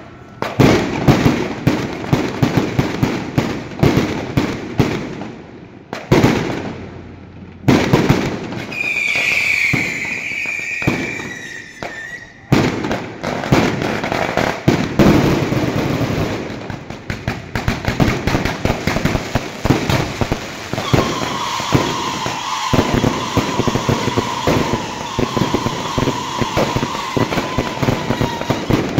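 Fireworks and firecrackers going off in dense, rapid crackling volleys with louder bangs among them. A whistling firework sounds from about nine seconds in for roughly three seconds, and a long steady whistle runs over the crackling from about twenty-one seconds in until near the end.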